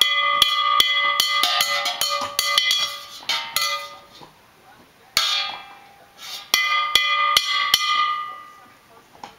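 A metal spoon banging on the bottom of an upturned stainless steel pot: irregular clanging strikes, each ringing on with a metallic tone, in two flurries with a short pause about four seconds in.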